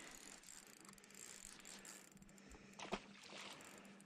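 Near silence: a faint steady low hum, with a single light knock about three seconds in.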